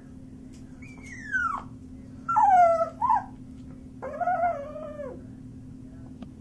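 Chihuahua puppy whining and howling: three drawn-out calls, the first falling sharply in pitch, the second dipping and lifting again, the third a lower arching howl about four seconds in.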